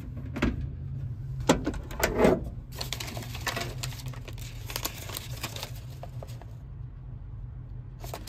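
Metal clicks and clunks from a 1954 Chevrolet 3100 pickup's cab door and latch as the door is opened, the loudest about two seconds in. A run of light rattles and handling ticks follows, over a steady low hum.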